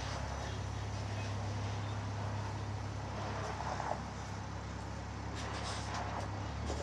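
Electric Heil side-loader garbage truck running at a distance, a steady low hum with a faint hiss over it.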